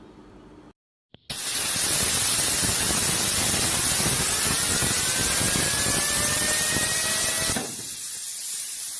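A loud, steady hiss like rushing air, with a faint whine rising in pitch through it. It starts suddenly after a short silence and drops off sharply near the end.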